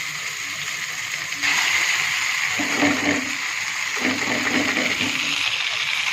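Hot oil and tomato-onion masala sizzling in a kadhai as boiled pasta is tipped in; the sizzle gets louder about a second and a half in.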